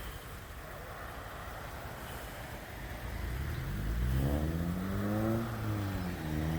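A low steady road rumble, then a car engine accelerating about halfway in: its pitch climbs, dips briefly, and climbs again.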